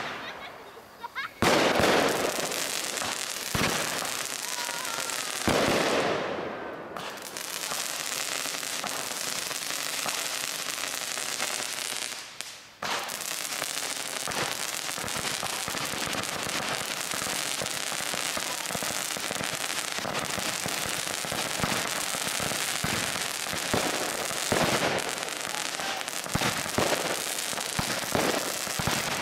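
Fireworks going off: a few loud bangs in the first six seconds, then a nearly unbroken stream of rapid sharp pops and hiss from rising, crackling shots, broken by a brief lull about twelve seconds in.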